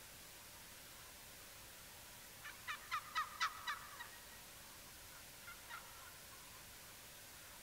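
Wild turkey gobbling: a quick run of about seven sharp notes starting about two and a half seconds in and lasting about a second and a half, then a fainter short burst about a second later.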